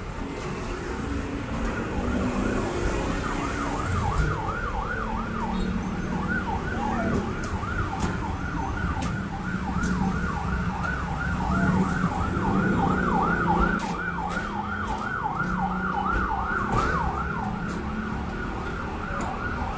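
Emergency vehicle siren on a fast yelp, its pitch sweeping up and down about three times a second, starting about two seconds in and stopping a few seconds before the end, over steady street traffic.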